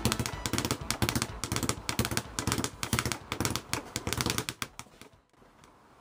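Heavy Fighting Sports speed bag being punched in a fast, rattling rhythm against a wooden rebound board, dying away and stopping about five seconds in.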